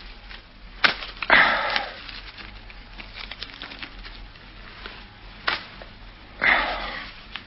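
A cigarette being lit and smoked, as radio-drama sound effects: a sharp click about a second in followed by a short breathy rush, then another click and a second breathy puff near the end.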